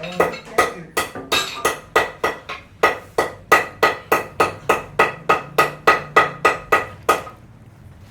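A hammer striking metal in rapid, even blows, about three to four a second, each with a short ring, stopping about seven seconds in.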